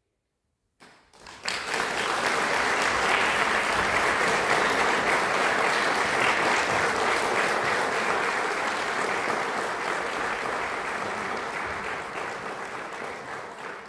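Concert audience applauding: the clapping breaks out about a second in after a moment of silence, holds steady, then slowly thins out near the end.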